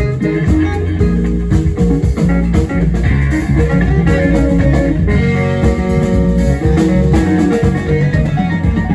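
Live band playing, with electric guitar leading over bass and a drum kit.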